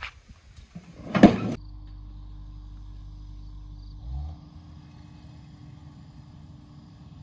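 Wooden-wheeled handcart rattling and clattering as it is pushed over concrete, with a loud knock about a second in. The clatter cuts off suddenly, giving way to a steady low hum.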